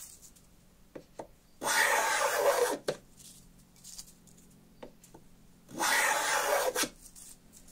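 Small brass thumb plane with a tool-steel blade shaving the edge of a piece of oak: two planing strokes, each a hiss of a little over a second, about four seconds apart. A few light clicks come between the strokes.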